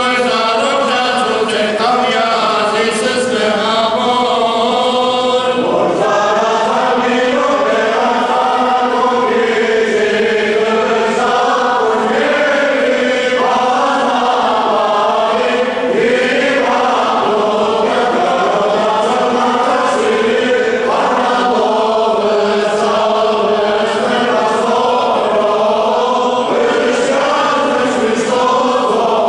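Armenian church choir chanting a hymn, long held notes that slide between pitches.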